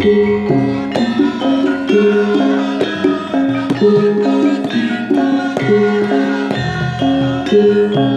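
Javanese gamelan ensemble playing a gending: bronze metallophones strike a repeating melody of ringing notes over kendang hand-drum strokes.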